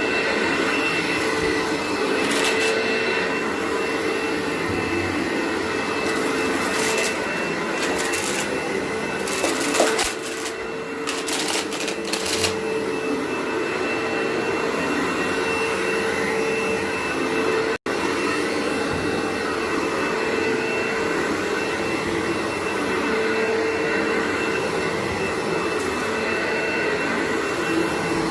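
Vacuum cleaner running steadily on carpet with a constant whine. Between about 7 and 12 seconds in there are bursts of crackling as grit and debris rattle up the intake.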